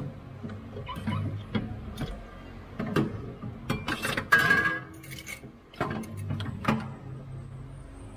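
Irregular metallic clinks, taps and knocks from a stainless-steel exhaust downpipe being handled and fitted under the car, loudest about four seconds in.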